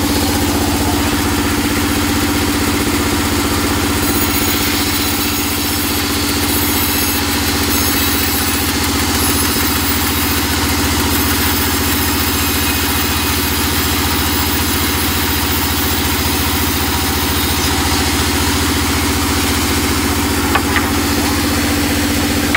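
Band sawmill running with a steady hum, its blade cutting a slab of teak. A harsher high hiss joins about four seconds in and lasts until about eighteen seconds. The title says the very hard teak makes the blade feel dull.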